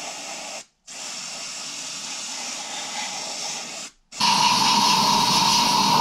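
Aerosol cleaner sprayed into the steel housing of a Honda Gold Wing 1000 starter motor to clean it out: a short hiss, then a steady hiss about three seconds long. From about four seconds in, a louder blast from a compressed-air blow gun, with a steady whistle in it.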